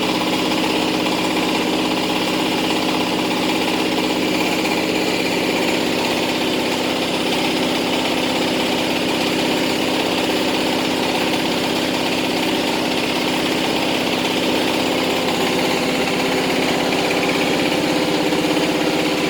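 Truck diesel engine idling steadily.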